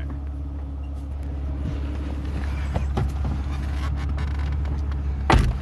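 Mercedes-Benz C320's 3.2-litre V6 idling steadily, with a few light knocks and clicks, then a loud thump near the end as a car door is shut.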